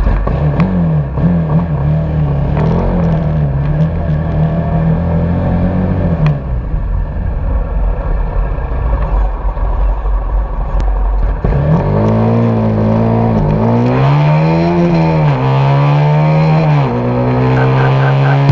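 Race-prepared TVS Apache 200 single-cylinder engine with a free-flow full-system exhaust and no catalytic converter, running at low revs as the bike rolls off. About two-thirds of the way through it accelerates hard, the revs climbing and dropping back with three upshifts.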